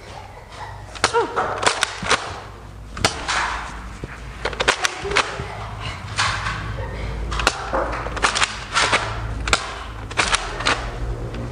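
Nerf foam-dart blasters being fired back and forth: an irregular run of sharp snaps and clacks, well over a dozen, with a few duller thuds among them.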